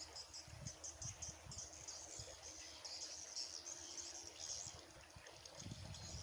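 Faint, high, pulsing chirping of insects, with scattered soft low thuds.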